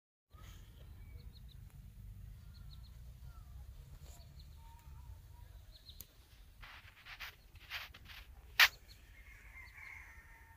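Quiet rural outdoor sound: faint chirps of small birds over a low wind rumble. A little past halfway come four short scuffing noises about half a second apart, the last and loudest about two seconds before the end.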